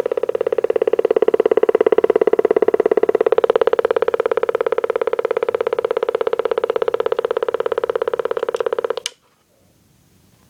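Radio Shack TRC-495 base CB radio making motorboating noise: a loud, rapid, steady putt-putt pulsing from its audio, the sign of a bad capacitor. It cuts off suddenly with a click about nine seconds in.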